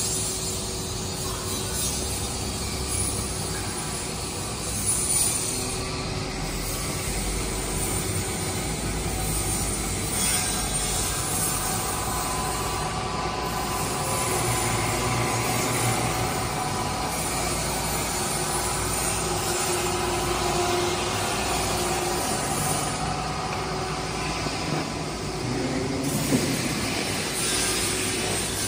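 Pipe haul-off machine running, its chain-driven crawler tracks and drive motors giving a steady mechanical whirr with faint whining tones that come and go.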